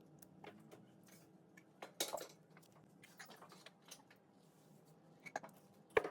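Scattered light clicks and clinks of small hard objects being handled, over a faint steady hum. The loudest taps come about two seconds in and just before the end.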